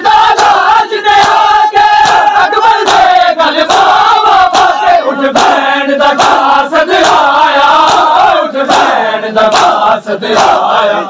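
A large crowd of men chanting a noha in unison, with sharp slaps of chest-beating (matam) keeping a rough beat through it.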